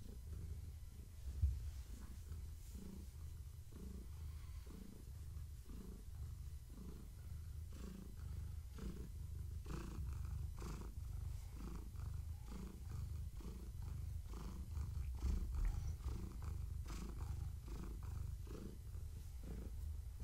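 Long-haired tabby cat purring steadily while being stroked, a low rumble that swells in a regular rhythm with her breathing. A brief bump sounds about a second and a half in.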